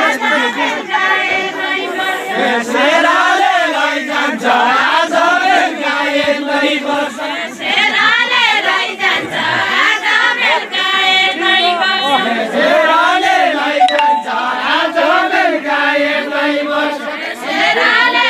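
A group of voices singing a deuda, the Far-Western Nepali folk song, together in chorus, in long phrases that rise and fall.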